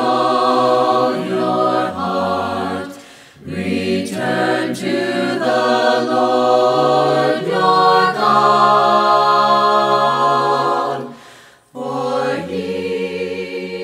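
A choir singing a cappella in harmony, holding long chords, with brief pauses about three seconds in and near the end.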